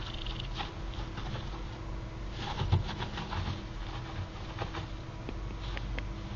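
Pet gerbil scrabbling and nibbling at a piece of orange: scattered small clicks and scratches, busiest around the middle, with one louder soft thump.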